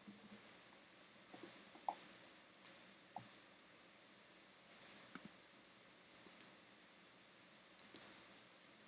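Light, irregular clicking of a computer mouse and keyboard: a dozen or more short clicks in small clusters, some in quick pairs, the loudest about two seconds in.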